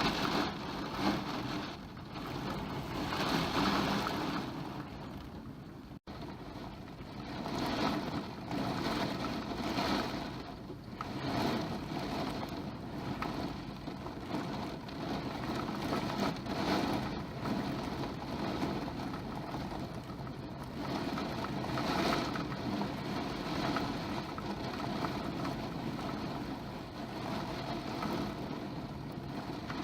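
Typhoon winds gusting with torrential rain, a rushing roar that keeps surging and easing in irregular gusts.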